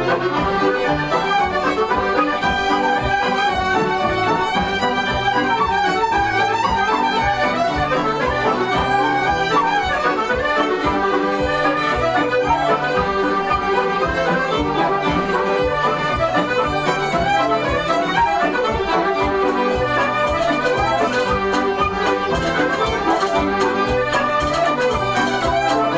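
Traditional Irish dance tune played on accordion and fiddle, with a steady rhythmic pulse.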